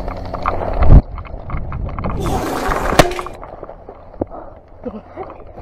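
Helmet-camera handling noise from a player scrambling through dry brush and up a sandy slope: rustling, scuffing steps and knocks on the microphone, with a heavy thump about a second in and a short hissing scrape around the middle.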